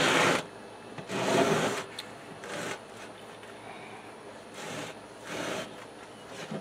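Five short bursts of rustling and rubbing, a few seconds apart: a sheet of screen material being pulled and handled off its roll.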